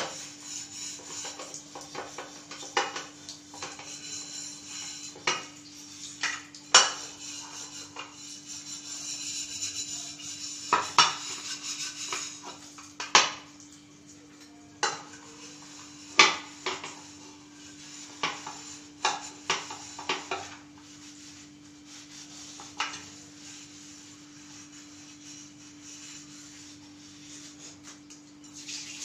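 Metal cookware clinking and knocking at irregular intervals, a dozen or more sharp strikes with the loudest near the middle, over a steady hiss and a low hum.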